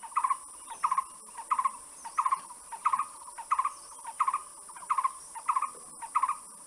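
A bird calling over and over, a short note about one and a half times a second, over a steady high insect drone.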